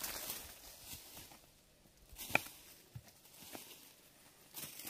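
Intermittent rustling swishes with a few sharp clicks and knocks, the loudest a single sharp knock a little over two seconds in.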